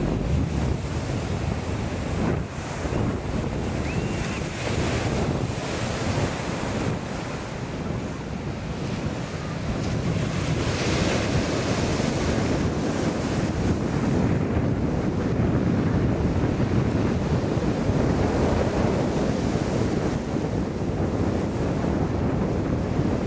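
Ocean surf breaking and washing up on a sandy beach, with wind buffeting the microphone in a low rumble. It gets somewhat louder about halfway through.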